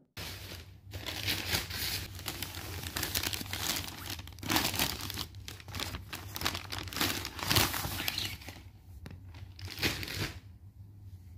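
Thin plastic bag crinkling and rustling in irregular handfuls as a hardcover notebook is handled and pulled out of it; the crinkling dies away near the end.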